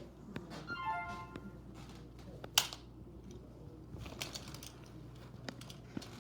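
A short burst of steady musical tones near the start, then scattered clicks and taps from small plastic fidget toys being handled, with one sharp click about two and a half seconds in.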